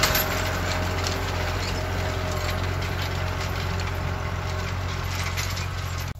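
New Holland 65-56 S tractor's diesel engine running steadily as it pulls a tine harrow across the field, getting slightly quieter as it moves away.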